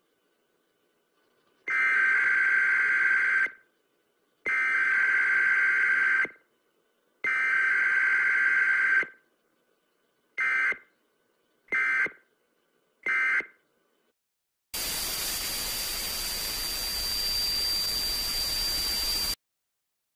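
Electronic emergency-broadcast-style alert tones: three long buzzing beeps followed by three short ones. They are followed by about four and a half seconds of hiss like TV static, with a thin steady high whine in it, which cuts off abruptly.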